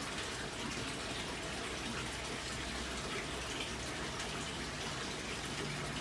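Steady rush of water and bubbling from a large aquarium's aeration and water circulation, unchanging throughout.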